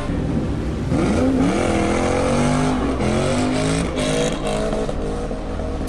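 Car engine revving hard during a burnout, its pitch rising and falling several times, over the noise of spinning tyres.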